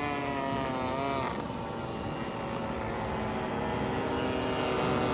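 Radio-controlled model airplane's gas engine running, its pitch wavering in the first second or so, then holding steadier.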